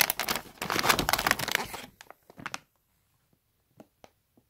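Packaging crinkling and rustling loudly as it is handled for about two seconds, then a few faint, isolated crinkles.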